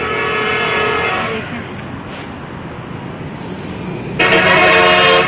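Road traffic rumbling, with vehicle horns: a horn tone fading over the first second and a half, then a loud horn blast about a second long near the end that cuts off suddenly.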